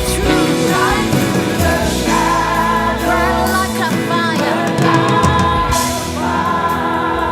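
Live worship music: a band playing with singers, voices held in long notes with vibrato.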